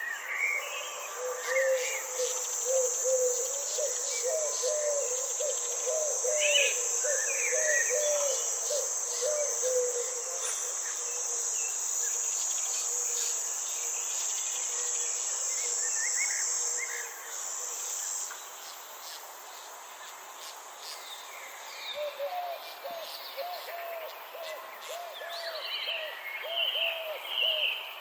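Garden ambience: an insect's steady high trill that stops about two-thirds of the way through, with birds chirping here and there. A lower call in a quick series of repeated notes runs through the first third and comes back near the end.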